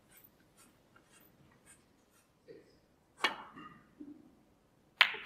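Snooker shot: faint light ticks, then a sharp click of cue tip or ball on ball about three seconds in and a louder ball-on-ball click near the end, each with a short ring. The commentator takes this for the dreaded double kiss.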